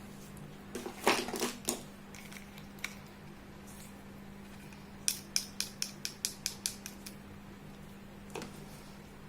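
Small hard clicks and taps from handling miniature plastic toy pieces: a short cluster about a second in, then a quick run of about nine clicks, roughly four or five a second, and one more near the end.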